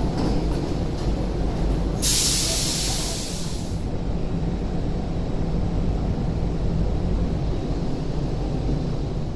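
An MTR Tuen Ma Line C-train standing at the platform, with a steady low rumble. About two seconds in, a sharp burst of compressed-air hiss starts and fades away over about two seconds.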